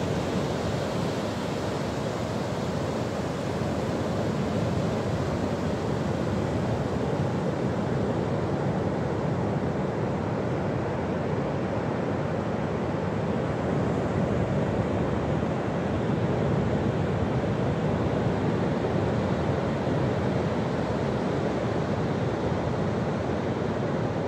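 Surf breaking on a sandy beach: a steady, unbroken rush of waves.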